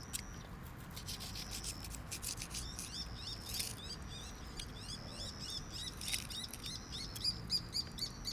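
Quick high chirps repeating several times a second, growing denser from about three seconds in, with scattered small clicks underneath.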